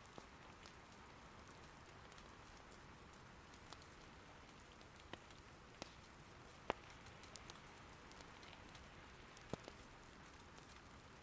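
Soft steady rain, faint, with about ten scattered sharp pops of firewood crackling in an irori hearth; the loudest comes about midway.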